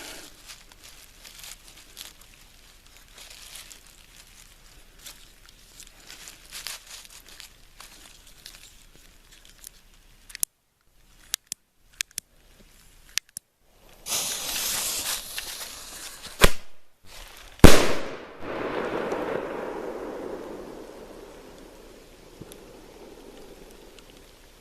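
A single-shot aerial firework going off. A fuse hisses for about two seconds, and the lift charge bangs out of the tube. About a second later the shell bursts in the air with the loudest report, which echoes and fades away over several seconds. Earlier there is faint rustling and a few sharp clicks.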